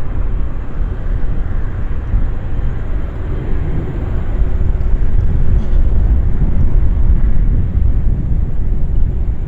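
Jet airliner engines rumbling as the plane passes, growing a little louder about halfway through.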